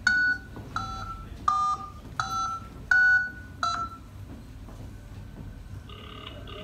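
Telephone keypad tones dialing a number: six short two-note beeps about two-thirds of a second apart, each a different key.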